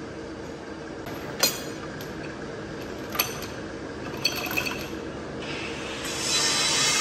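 Sharp metallic clinks, metal striking metal with a short ring, about four times over a steady workshop machine hum. Near the end a loud hissing noise rises.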